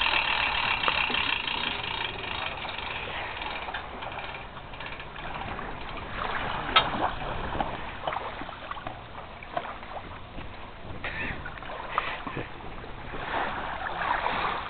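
An inflatable boat being put in the water: water sloshing with scattered knocks and clatter, one sharp knock about seven seconds in. A steady whine sounds over the first few seconds.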